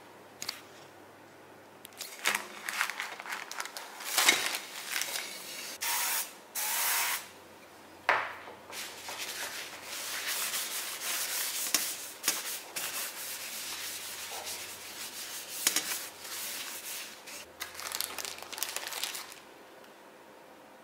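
A hand wiping oil over a perforated metal baguette pan, giving a run of irregular, scratchy rubbing strokes that starts about two seconds in and stops shortly before the end.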